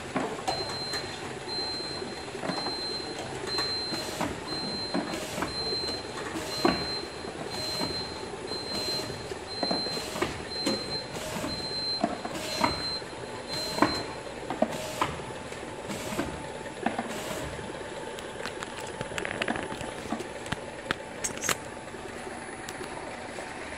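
Automatic wrap labeler running: a steady machine hum with sharp clacks of containers on the conveyor, roughly one a second, fewer after the middle. For the first fourteen seconds or so, a high electronic beep repeats a little more than once a second, the labeler's alert for an empty label roll.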